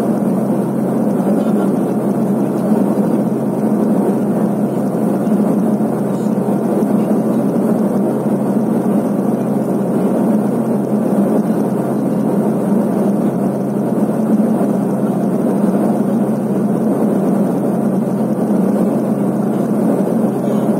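Let L-410 UVP-E20 twin turboprop heard from inside the cabin: a steady, loud drone of engine and propeller, a low hum of steady tones under a rushing noise, unchanging as the aircraft descends to land.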